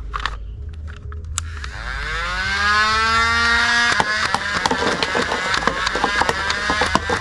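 Battery-powered toy machine gun running: a whine that rises in pitch as its motor spins up over about two seconds, then holds steady with rapid irregular clicking and rattling from about four seconds in.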